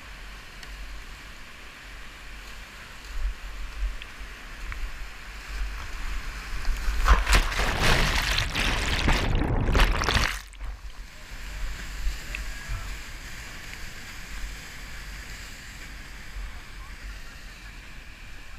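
Whitewater rapid rushing steadily around a kayak. From about seven seconds in, loud splashing and churning as the kayak plunges through the drop and water swamps the microphone, cutting off suddenly about ten and a half seconds in.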